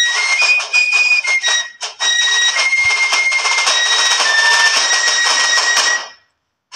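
Music: a high melody of held notes stepping up and down over a busy accompaniment, cutting off suddenly about six seconds in.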